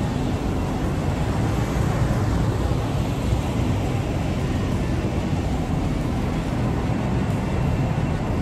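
Wind buffeting the phone's microphone on a high open balcony: a steady, loud low rumble.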